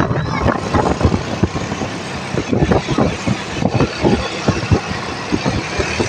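Motor vehicle engine and road noise, loud and continuous, with no horn sounding.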